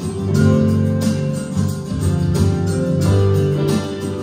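Live instrumental music: a guitar played over sustained low notes, with a steady beat.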